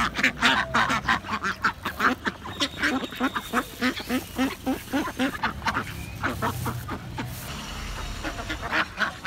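A flock of white domestic ducks quacking rapidly and continuously while feeding, many short calls overlapping; the quacking eases for a moment about eight seconds in, then picks up again.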